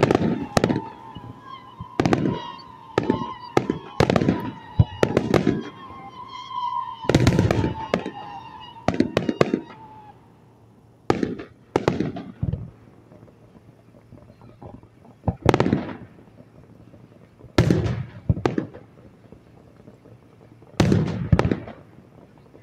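Fireworks display: shells bursting in sharp, irregular bangs, coming in quick runs for the first ten seconds and spaced out by quieter gaps after that. A steady high tone wavers along under the bangs and stops about ten seconds in.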